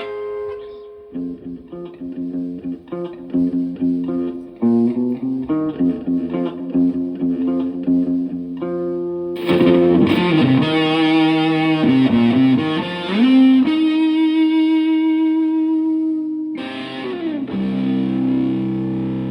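Electric guitar played through a germanium Fuzz Face-style fuzz pedal and a Fender Twin Reverb amp. It starts with a run of single picked notes. A little over nine seconds in, the tone turns louder and thicker, with wavering string bends, then a long held note, and near the end a fuzzed chord left to ring.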